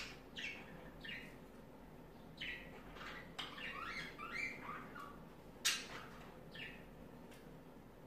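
Budgerigars chirping in short, scattered calls, with a quick run of chattering chirps in the middle and one sharp, louder chirp about two-thirds through.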